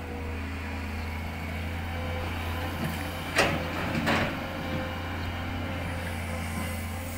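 Long-reach hydraulic excavator's diesel engine running steadily with a thin steady whine above the low drone. Two sharp knocks come a little past the middle, about three quarters of a second apart, as the bucket works at a stump.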